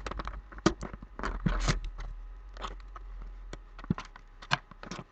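Hands working at a sealed cardboard trading-card box, fingers scraping and tapping on the cardboard in irregular clicks and short rustles while trying to get the sealed lid open.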